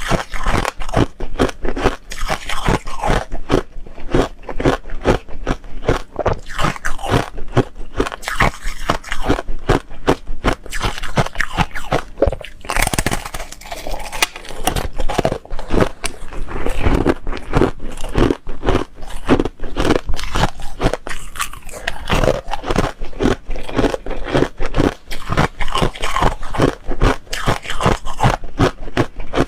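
Close-miked biting and chewing of foam ice: rapid, dense crunching with some scraping, going on without a break.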